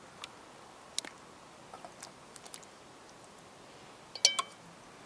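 Scattered light clicks and taps, then a sharp metallic clink that rings briefly about four seconds in.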